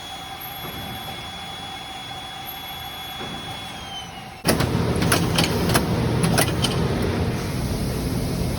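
Sheet-metal shop machinery: a steady low hum with a thin high whine, then about halfway in a much louder machine noise starts suddenly, with several sharp clanks over it.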